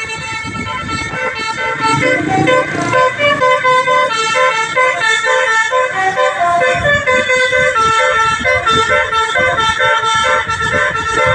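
Bus 'telolet basuri' horn, a multi-tone melody horn, playing a flute-like tune of quick, short notes without a break. A low rumble runs underneath from about seven seconds in.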